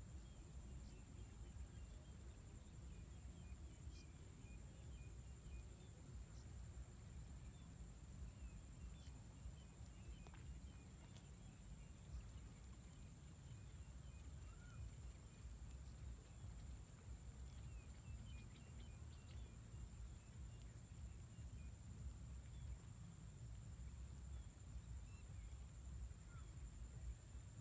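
Near silence: faint outdoor ambience with a low rumble, a steady high-pitched whine and a few faint scattered chirps.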